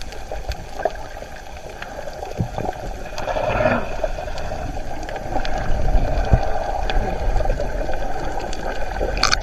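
Underwater sound through a submerged camera: a steady, muffled rumble and hiss with scattered faint clicks and knocks. It swells somewhat midway, and a brief brighter hiss comes near the end.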